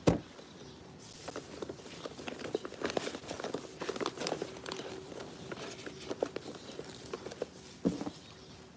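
Close handling noise at the microphone: a sharp knock, then a run of small clicks and rustles, and another knock near the end, over a faint steady hum.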